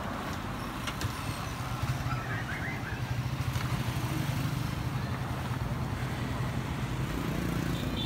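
A motor vehicle engine running at idle: a steady low hum that grows a little louder about two seconds in.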